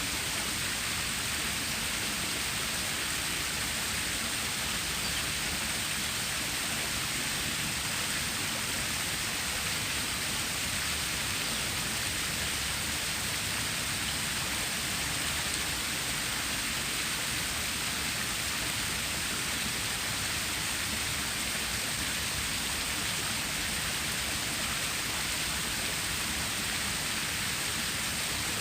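Water stream flowing, a steady, even hiss of running water that does not change.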